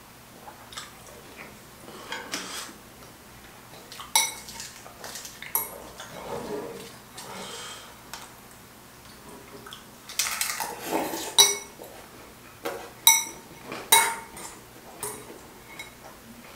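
Metal chopsticks clinking and scraping against a bowl as noodles are stirred and mixed. There are several sharp clinks with a brief ring, the loudest a little past the middle and near the end, between longer stretches of scraping.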